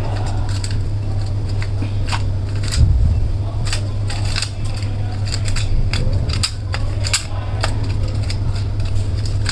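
Irregular small clicks and taps of a vape pod device's parts being handled and fitted back together, over a steady low hum.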